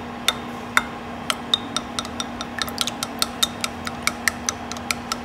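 Eggs being beaten with a utensil in a bowl: quick, irregular clinks of the utensil against the bowl, several a second, over a steady low hum.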